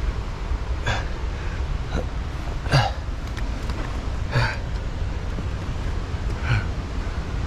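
A climber's short, effortful grunts or hard breaths, four of them a second or two apart, over a steady low rumble.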